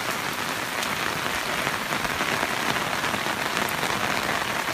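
Heavy rain falling, a steady hiss with scattered drop ticks.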